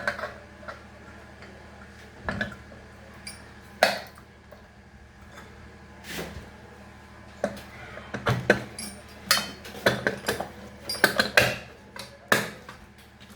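Sharp metallic clinks and knocks of ceiling fan parts and tools being handled and fitted together during reassembly. They come a few seconds apart at first, then in a quick busy cluster over the last five seconds or so.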